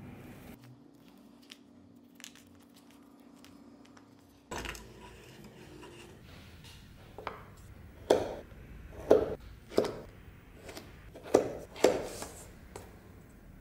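Workbench handling sounds of leather pieces and hand tools: a faint steady hum for the first few seconds, then, from about halfway, a series of about five sharp knocks and taps.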